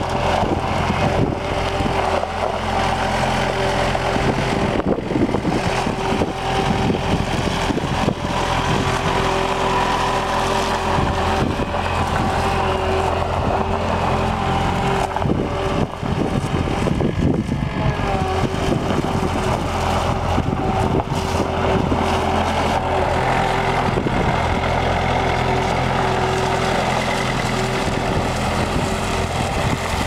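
A 1986 John Deere 675 skid steer's engine running steadily as the machine drives and turns, with a steady pitched hum that briefly wavers about halfway through.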